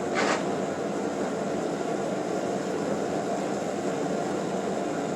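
Steady roar of a blacksmith's forge running, an even noise with no hammer blows.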